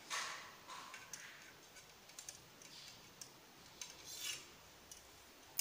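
Serrated bread knife sawing through a chocolate sponge cake, slicing it into two layers: faint, irregular rasping strokes.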